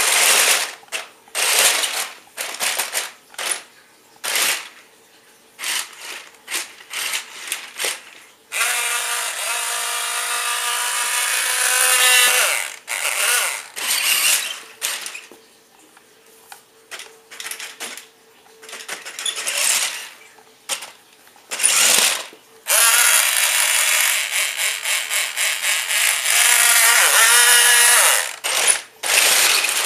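Tyco Monster Traxx RC toy's electric drive motors and gearboxes whirring in many short stop-start bursts, with two longer runs of a few seconds each whose whine rises in pitch near the end. It is running on its high-speed setting on a fully charged battery.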